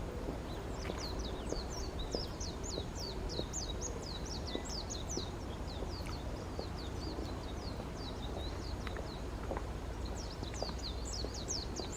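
A bird calling in a fast, high series of short chirps, about six a second, in two runs: one starting about a second in and lasting some five seconds, the other starting near the end. A steady low rumble runs underneath.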